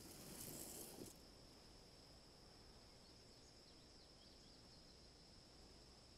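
Near silence: faint forest ambience, a brief soft swish in the first second, then a steady high whine under a low hiss with a few faint chirps near the middle.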